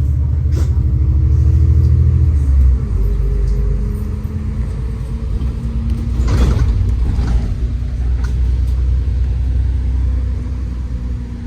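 Low rumble of a city bus's engine and road noise heard from inside the moving bus. The engine note drops about two and a half seconds in, and there is a brief swish about six and a half seconds in.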